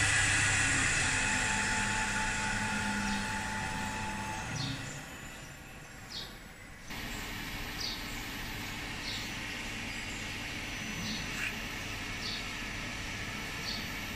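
CNC wood turning lathe with an air-cooled slotting spindle running, fading away over the first five seconds or so. After a short lull, a steady factory background with faint short high chirps about once a second.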